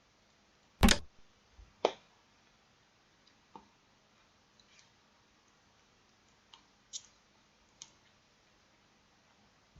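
Scattered sharp clicks: a loud pair about a second apart near the start, then several fainter ones spread over the rest, typical of computer mouse clicks during an online Chinese chess game.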